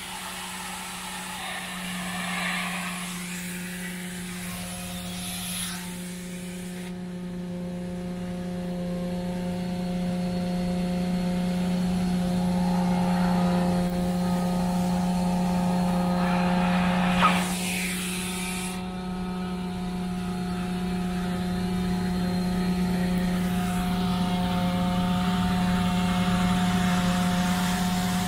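Truck-mounted carpet-cleaning unit's vacuum drawing through an upholstery tool: a steady hum with a hiss of suction over it. The hiss thins out about a quarter of the way in, surges back briefly past the middle, then thins again.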